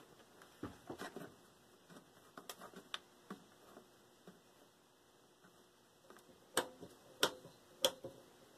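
Heathkit GR-64 tube shortwave receiver giving faint, scattered clicks and crackles while its knobs and band switch are turned, the loudest few near the end. The crackling is a sign of a fault still in the set.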